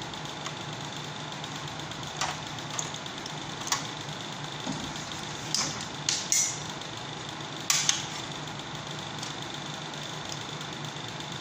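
Scattered light clicks and knocks of hands and tools working on a window air conditioner, several in quick pairs, over a steady low hum with a faint high whine.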